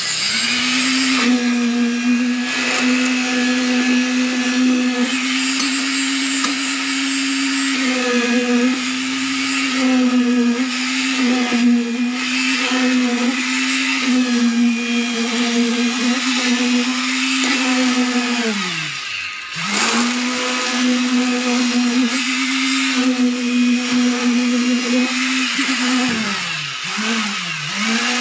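Electric concrete needle vibrator running with a steady high hum as its poker consolidates freshly poured concrete. It winds up just as it starts, winds down almost to a stop and straight back up about two-thirds of the way through, and its pitch sags twice near the end as it is loaded.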